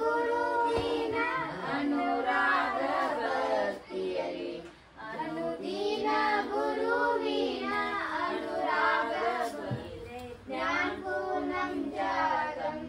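Children singing a song in sung phrases, with short breaks about four and a half seconds in and again near ten seconds.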